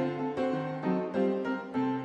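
Background piano music: a melody over chords, with a new note or chord struck every third to half second, each ringing and fading.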